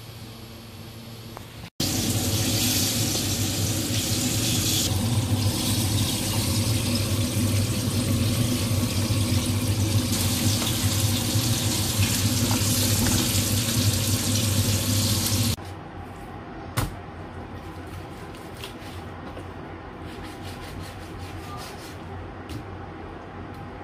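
Hot oil sizzling and bubbling in a wok, a loud steady hiss that starts abruptly about two seconds in and stops abruptly after about fourteen seconds. Afterwards a low hum remains, with a few sharp clicks of a knife on a cutting board.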